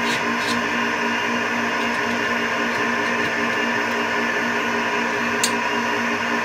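Metal lathe running steadily, a machine hum with a regular pulsing throb a few times a second. A few short sharp metal clicks: two near the start and one about five seconds in.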